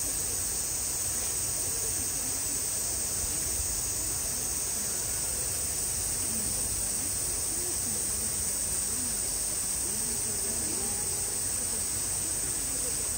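Steady high-pitched drone of a summer cicada chorus, with faint, distant chatter of visitors underneath.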